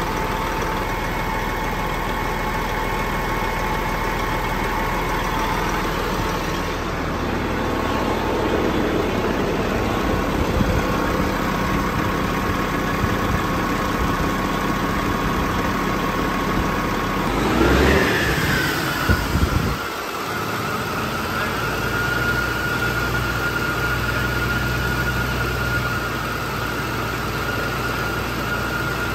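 Freshly rebuilt-in heavy-truck diesel engine idling steadily on its first run, sounding quiet and smooth, which the owner takes for a good motor with good compression. About eighteen seconds in the pitch briefly rises and falls, and a steady high tone carries on after it.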